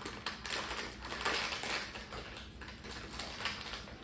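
A small candy packet being worked open by hand, its wrapper crinkling and crackling in quick little bursts.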